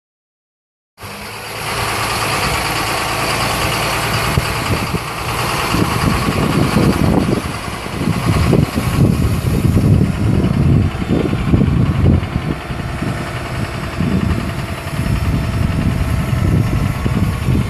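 John Deere 7130 tractor's six-cylinder turbo diesel engine starting to be heard about a second in, running steadily as the tractor drives. An irregular low rumble lies over it from about seven seconds in.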